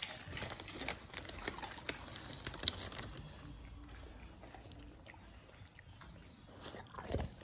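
Labrador retriever crunching and chewing a potato chip: a quick run of crisp clicks for the first few seconds, then fainter chewing and licking. A short low sound comes near the end.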